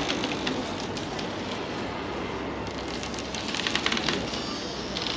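Steady outdoor background noise with bursts of rapid clicking or rattling, densest about three to four seconds in.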